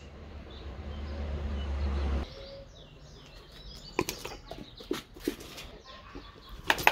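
A steady low hum for about two seconds, then sharp clicks and clacks: a dog in a plastic cone collar snapping at a piece of food held out by hand.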